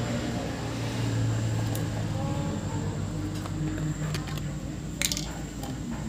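Light handling noises as a new spin-on oil filter is turned over and set down on its cardboard box on concrete, with a few soft clicks and one sharp click about five seconds in, over a steady low hum.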